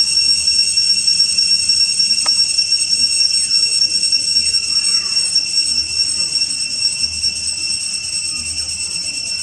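A steady, high-pitched ringing drone of insects, several pure tones held without a break, with one sharp click about two seconds in.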